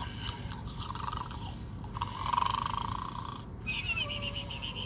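Gund Arnold the Pig toy snoring: a rasping in-breath, a stronger snore about two seconds in, then a whistling breath with a falling tone near the end, over a steady low hum.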